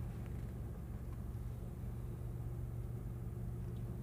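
Vehicle engine running steadily at low speed, a constant low hum heard from inside the cab.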